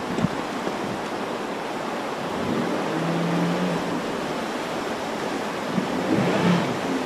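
Fast-running floodwater rushing through a street, a steady noise of moving water.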